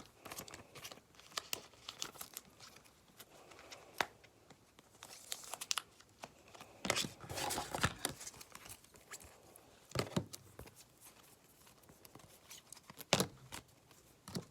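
Trading cards and their plastic sleeves and wrappers being handled: intermittent crinkling and rustling with a few sharp taps.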